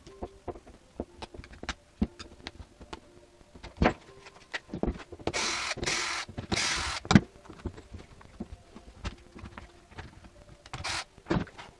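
Hands working on the plastic housing of a corded impact drill as it is taken apart, with the motor not running. There are scattered clicks and knocks, and about halfway through come two longer rubbing, scraping noises with a shorter one near the end.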